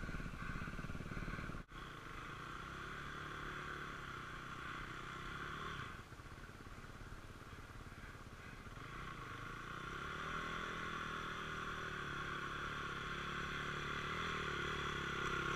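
Dirt bike engines running at low revs, mostly idling, with a couple of slow, gentle rises in revs. A single sharp click comes about two seconds in.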